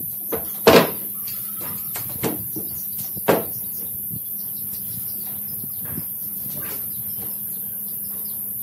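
Solid wooden tabletop being shifted and seated on its carved wooden table frame: wood-on-wood knocks and light scraping, with a sharp knock just under a second in and another a little over three seconds in, over a steady faint hum.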